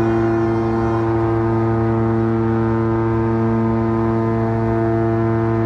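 Cruise ship MSC Opera's horn sounding one long, unbroken blast, a deep steady tone rich in overtones, given as a collision warning.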